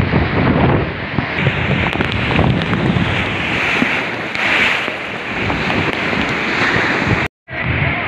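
Storm waves surging and breaking against wooden stilt houses in a flooded village, with strong wind buffeting the microphone. The sound cuts out for an instant near the end.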